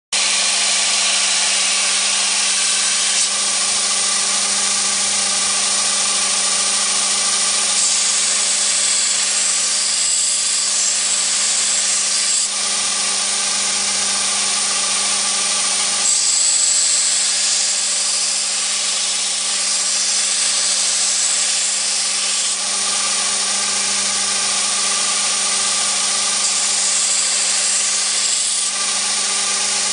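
Belt grinder running with a steady motor hum while a steel knife blade is ground against the abrasive belt. A harsher, higher grinding hiss comes in three times, for a few seconds each.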